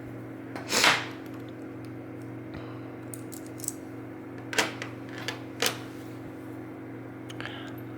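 A few small, sharp clicks of metal lock pins and parts being handled. Under them runs a steady low hum, and about a second in there is one short rush of noise.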